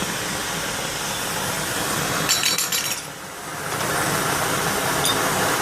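Steady hiss of a gas torch flame. About two seconds in comes a quick run of metallic clinks, then a short lull before the hiss picks up again.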